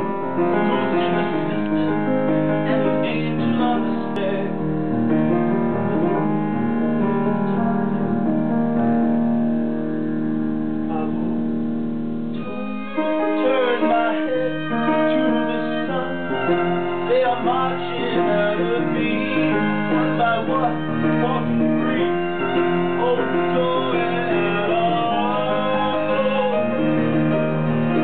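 Live piano playing sustained chords, joined about halfway through by a man singing over it.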